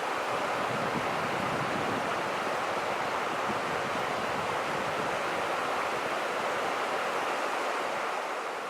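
Small mountain creek rushing steadily over rocks, fading out near the end.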